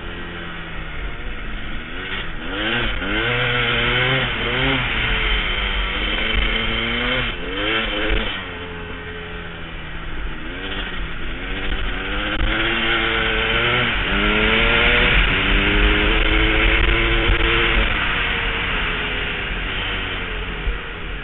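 KTM EXC enduro motorcycle engine revving hard as it is ridden around an ice course. Its pitch repeatedly climbs and drops as it accelerates, shifts and backs off for the corners, then holds high for a few seconds past the middle. A constant rushing hiss runs under it.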